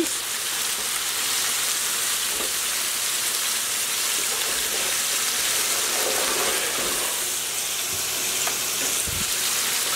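Pork chops sizzling steadily as they sear in a hot pan.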